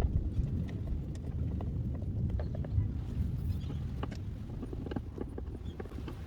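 Scattered light clicks and knocks while a self-tapping screw is turned by hand into a plastic fender flare, over a steady low rumble.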